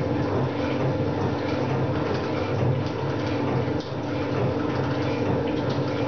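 Metal shaper running at 60 strokes per minute, its ram going back and forth about once a second over a steady mechanical hum.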